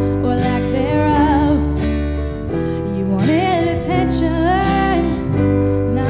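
A woman singing a slow song over acoustic guitar strumming, holding a long note in the second half.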